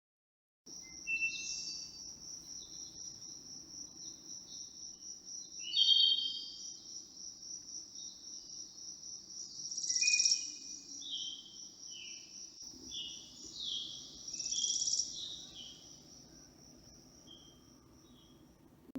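Insects trilling steadily in a fast, high-pitched pulse, swelling louder three times, with scattered bird chirps and short calls over it. It cuts in suddenly and thins out near the end.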